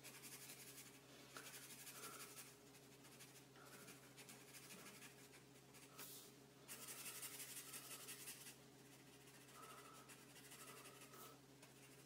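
A black felt-tip marker scratching faintly on paper as it colours in small stripes, in short runs of strokes with brief pauses between them.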